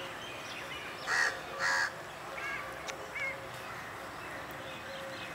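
A crow cawing: two loud caws about a second in, half a second apart, then a couple of shorter, softer calls.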